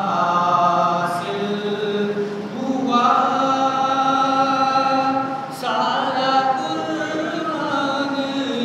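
A man singing an Urdu naat unaccompanied, his voice holding long melodic notes with short breaks for breath.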